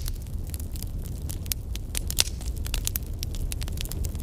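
Crackling fire: irregular sharp pops and crackles, several a second, over a steady low rumble, with one louder pop about two seconds in.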